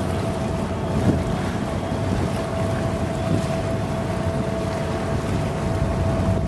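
Low, steady rumble of the cruise ship Costa Fortuna underway, mixed with wind buffeting the microphone, and a steady thin tone running under it.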